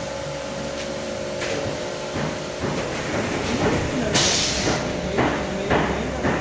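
Pneumatic quilt vacuum-packing and rolling machinery running: a steady hum with a few held tones, then irregular clunks and knocks from about two seconds in, and a short loud hiss about four seconds in.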